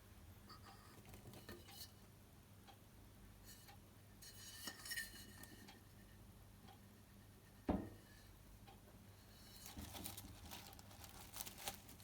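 Quiet kitchen handling sounds: faint clinks and light clatter of utensils and dishes, with one short soft thump about two-thirds of the way through.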